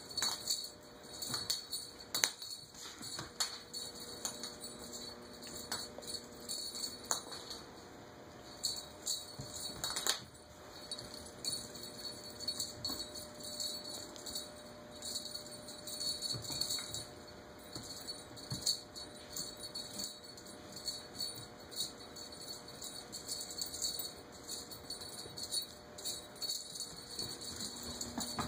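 A small cat toy jingling and clattering on a tile floor as kittens bat and chase it, in irregular taps and clicks with bursts of bright tinkling.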